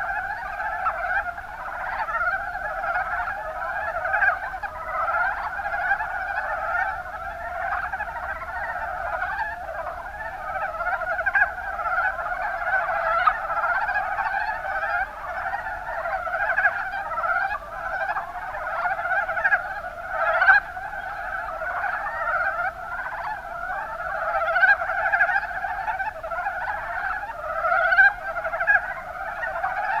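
Mountain brown frogs (Rana ornativentris) calling: many short, quick notes overlapping into a dense, continuous chorus, with a few louder single calls standing out near the end.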